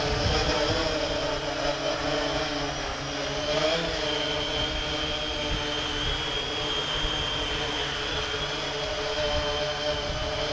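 3DR IRIS quadcopter's electric motors and propellers whining steadily as it descends and autolands, a landing triggered by its drained battery. The pitch wavers briefly partway through, then holds steady.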